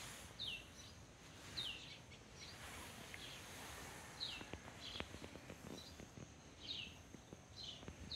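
A bird repeating a short, quickly falling call note about once a second, against a faint steady high-pitched whine and a few soft clicks.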